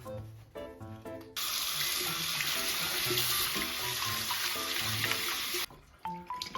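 Running water from a tap in a steady hiss for about four seconds, coming on suddenly about a second in and cutting off abruptly near the end, over light, plucky background music.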